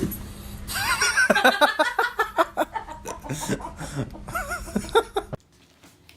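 A person laughing in a run of quick, choppy bursts, loudest at the start, then cut off suddenly about five seconds in.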